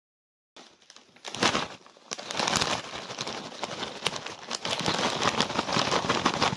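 Plastic crisp packet crinkling loudly as it is shaken and handled close to the microphone, starting about a second in.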